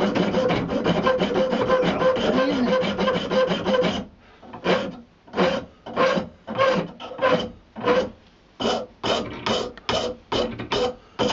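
Hand file rasping on buffalo horn, opening up the nose of a walking-stick handle: rapid, unbroken strokes for about four seconds, then slower separate strokes about two or three a second.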